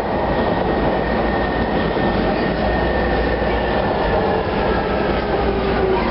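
Interior noise of a UTDC-built TTC H6 subway car running along the track: a steady, loud rumble of wheels and car body, with a faint high whine slowly falling in pitch.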